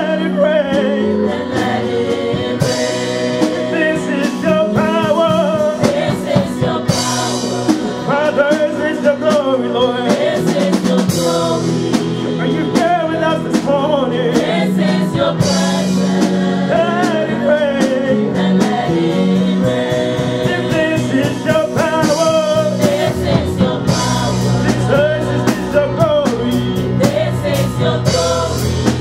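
Live gospel worship music: a group of singers on microphones sing together over a drum kit and band.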